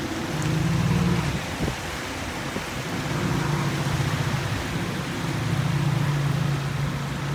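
Yamaha jet ski's engine running at low revs while towing an inflatable ring through the shallows, its hum dipping briefly a couple of seconds in and then holding steady, over the wash of breaking surf.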